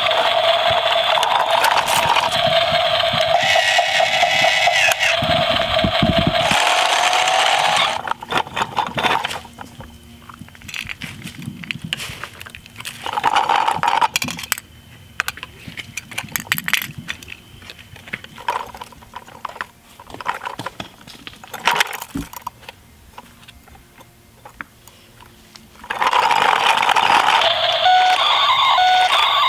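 Electronic sound effects from a battery-powered toy truck, a steady tone for the first several seconds and short repeated beeps near the end. In between, quieter plastic clicks and scraping as the toy trucks and a small toy bin are handled on a gravelly surface.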